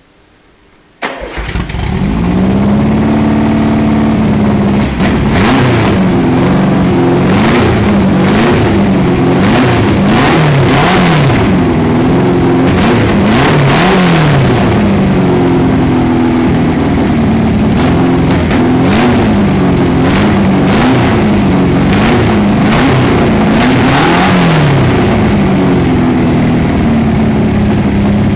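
Tuned air-cooled VW Beetle flat-four, 1835cc with ported heads and Weber 44 IDF carburetion, starting about a second in. It is then blipped up and down over and over in quick revs before settling toward a steady idle near the end.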